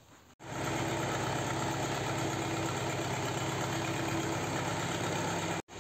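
Belarus MTZ-52 tractor's four-cylinder diesel engine idling steadily, just after it has finally been got running. The sound breaks off briefly near the end and then carries on.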